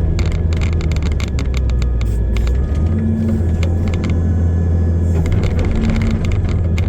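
Heavy machine's engine running steadily with a deep drone, with rapid rattling and clanking over it that eases off in the middle of the stretch.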